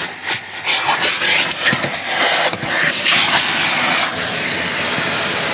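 Vacuum cleaner running, its hose nozzle drawn along the car's floor carpet and seat rail; the rush of air wavers as the nozzle meets the surfaces, then evens out about four seconds in.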